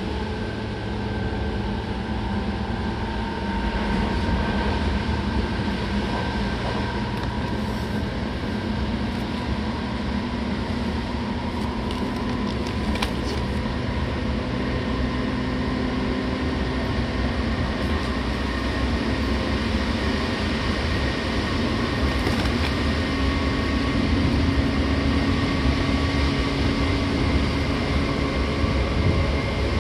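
Seibu 6000 series electric train with Hitachi GTO-thyristor VVVF inverter drive running along the line: steady rumble of wheels on rail with motor and inverter tones that shift slowly in pitch.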